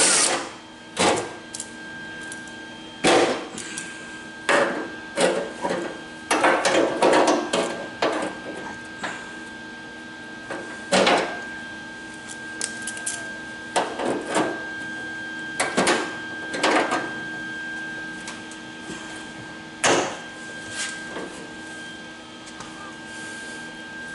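Intermittent sharp metallic clanks and knocks of hand tools and locking pliers being handled against a car's steel door frame, over a faint steady hum.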